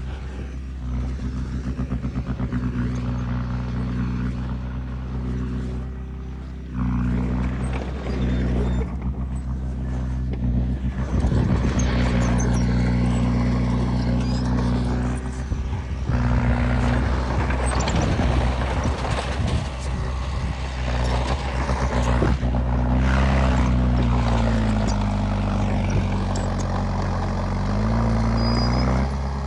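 Heavy diesel machinery engine running steadily, louder from about seven seconds in, with its engine note dipping and rising again near the end as it is loaded or revved.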